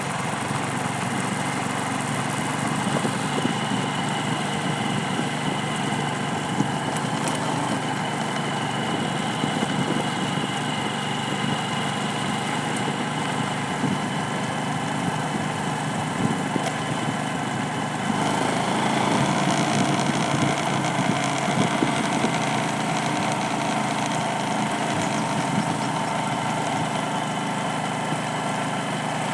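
Vehicle engine running steadily under way, with dense road noise; the sound grows a little louder about eighteen seconds in.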